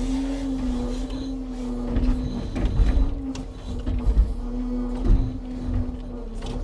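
Hydraulic log-loading crane at work: a steady hum that wavers in pitch and breaks off twice, with several heavy knocks from about two seconds in.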